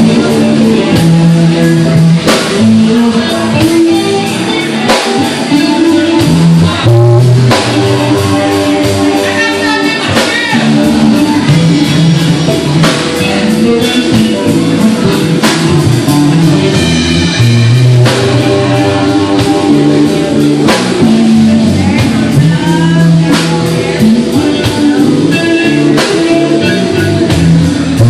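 Three-piece rock band playing live, loud: electric guitar, bass guitar and drum kit.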